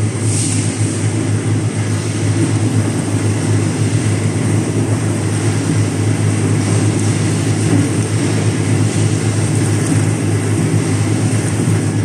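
Carrot brush washing and peeling machine running steadily with a constant low hum.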